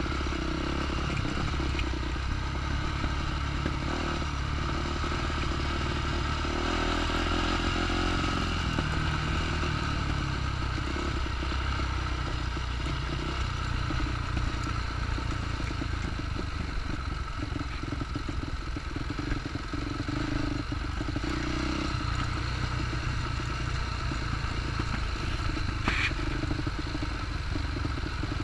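Dirt bike engines running steadily at low trail speed, the pitch rising and falling a little with the throttle. A single short sharp click comes near the end.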